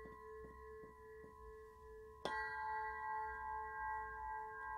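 Hanging crystal singing pyramid tapped lightly with a mallet about four times, ringing with a steady pure tone. It is then struck firmly a little over two seconds in, adding a brighter, louder ring that sustains.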